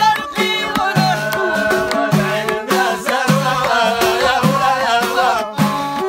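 Amazigh folk song: group singing over hand-held frame drums beating a steady rhythm, about two strokes a second.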